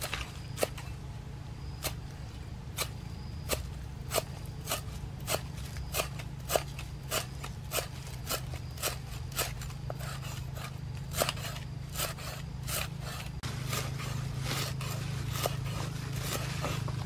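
Steel cleaver chopping green stalks on a wooden chopping board: a regular run of sharp chops, about one every two-thirds of a second, coming faster in the second half, over a steady low hum.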